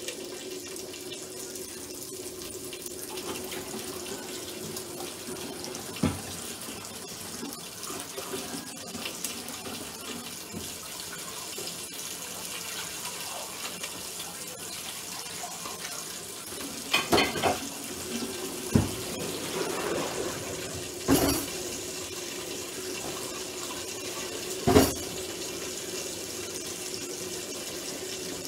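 Kitchen sink tap running steadily, with a handful of sharp knocks and clinks of kitchenware at the sink, mostly in the second half, the loudest near the end.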